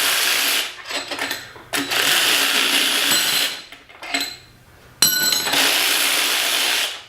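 A handheld power tool run in three bursts of about one and a half to two seconds each, a high whirring with short pauses between runs.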